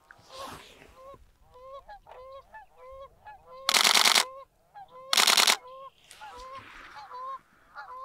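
Geese honking in flight: many short, repeated honks. Two loud bursts of rapid-fire camera shutter clicks come about three and a half and five seconds in.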